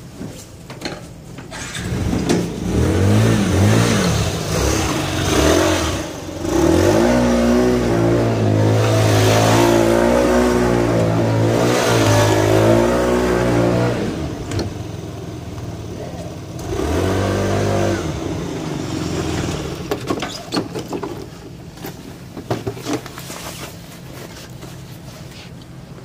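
Small moped-type delivery scooter engine revving up and riding past, rising in pitch as it accelerates and then running steadily at speed. It revs up and falls away once more about 17 seconds in before fading.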